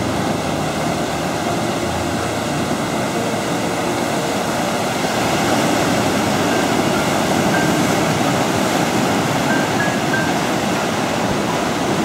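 Sea surf washing in over a rocky shore, a steady rushing that swells as a wave breaks around the middle, with soft background music.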